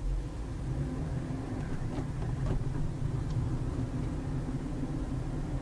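Car driving along, heard from inside the cabin: a steady low rumble of engine and tyre noise.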